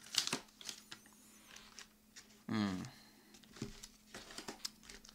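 Paper wrappers and takeout packaging handled at the table, crinkling and rustling with scattered light clicks. A short hum of voice about two and a half seconds in.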